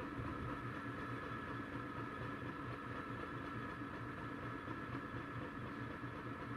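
Engine idling steadily: a low, evenly pulsing hum with faint steady high whines above it.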